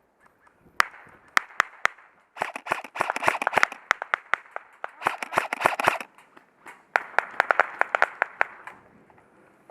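Airsoft guns firing: a few single cracks, then three rapid full-auto bursts of a second or so each.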